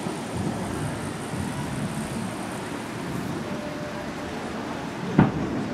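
Distant fireworks shell exploding once, a single sharp boom about five seconds in, over the steady hum of street traffic.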